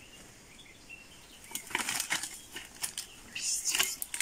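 Rustling and crackling of grass, leaves and dry twigs as a bicycle is pushed through dense forest undergrowth, in a run of short bursts starting about a second and a half in.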